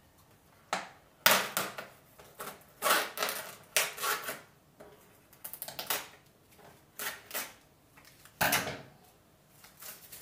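Plastic film being cut with scissors and pulled off a plastic tray of minced meat: a string of short, irregular crinkles and snaps of plastic.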